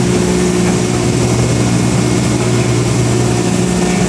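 Heavy diesel machinery running steadily: a loud, even engine hum with constant low tones that do not change.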